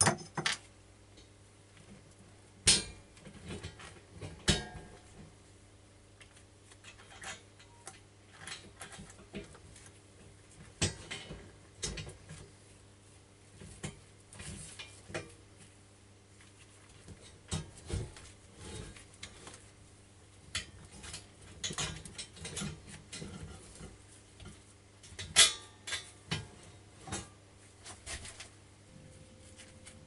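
Irregular clinks, clanks and knocks of metal tools and parts being picked up, set down and worked by hand, with a few louder knocks, over a steady low hum.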